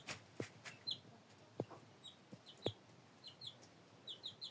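A young chicken chick peeping: short high cheeps, singly and in quick pairs and threes, with a few short low knocks between them.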